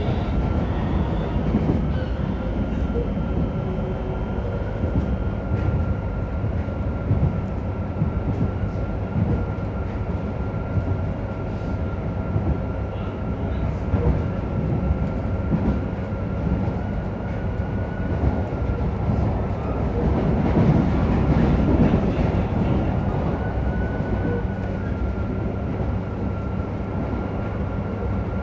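Running sound inside a JR Hokkaido 731 series electric motor car (MoHa 731-109) at speed: a steady low rumble with a steady high tone above it and occasional rail clicks, swelling louder about twenty seconds in. This car's traction motor gives an abnormal roar resembling an old nose-suspended (tsurikake) motor.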